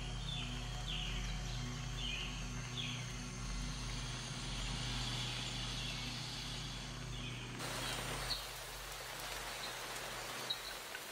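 Outdoor nature ambience: small birds chirping in short falling calls over a low steady hum. About two-thirds of the way through it switches abruptly to an even, rain-like hiss, with a few short clear notes near the end.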